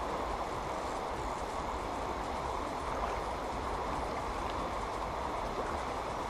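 Shallow river current rushing steadily past, an even, unbroken rush of water.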